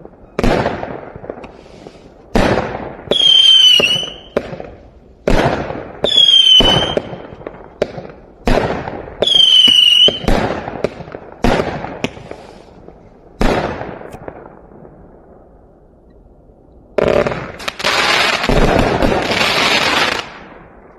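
A 168-shot consumer fireworks cake firing shot after shot, every second or two, several shots with a whistling tail. After a brief lull near the end, it fires a dense three-second finale barrage of crackling that stops suddenly.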